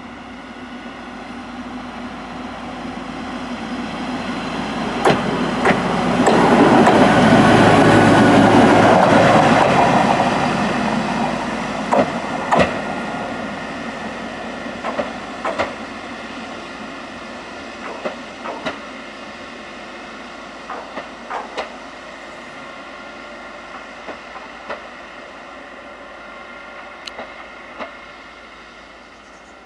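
Volvo road-rail wheeled excavator driving along the track past the listener: its diesel engine drone swells to a peak a few seconds in and then fades as it moves away. Sharp, irregular clicks and clanks come from its wheels rolling on the rails.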